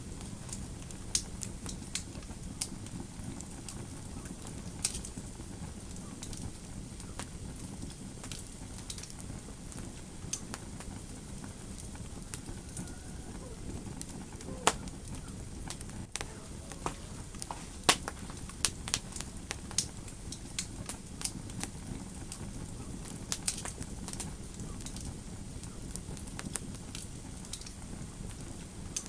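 Wood fire crackling in a fireplace: irregular sharp pops and snaps over a steady low rumble of the flames, with the loudest snaps about halfway through.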